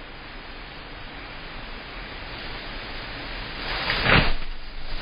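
Hurricane wind and rain, heard through a porch security camera's microphone: a steady rushing noise that builds gradually, with a strong gust about four seconds in.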